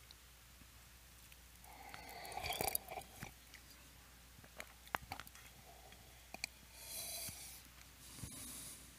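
Faint handling sounds as a glass chalice is lifted, drunk from and lowered at a cloth-covered altar: scattered light clicks and knocks, the sharpest about two and a half and five seconds in, with short stretches of rustling.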